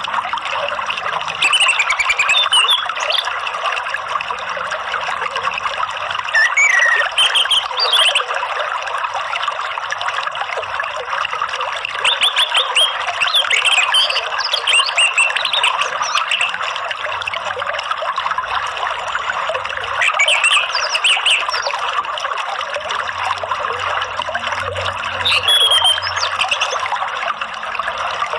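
Steady trickling of running water, with short bursts of songbird chirping and whistled notes breaking in about five times.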